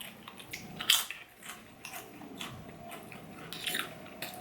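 Close-up eating sounds: crisp bites and chewing, with a few short, sharp crunches.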